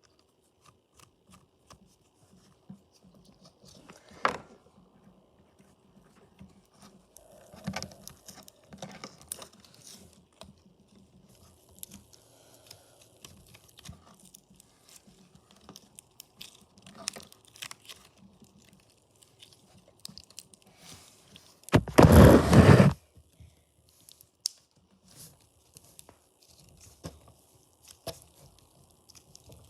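Slime being played with by hand: a run of small crackles and clicks, broken by one loud, noisy burst of about a second about three-quarters of the way through.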